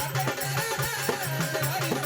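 Instrumental interlude of a Marathi devotional folk song: a steady, quick percussion beat under a wavering melodic line, with no singing.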